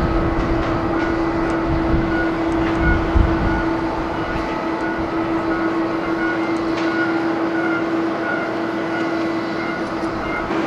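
Boeing 777-200ER's jet engines running at taxi power: a steady drone with a held hum. Wind rumbles on the microphone for the first few seconds.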